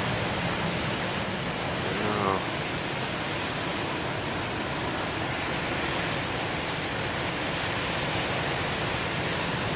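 Steady roar of ocean surf, an even rushing noise with no single wave standing out, and a brief faint voice about two seconds in.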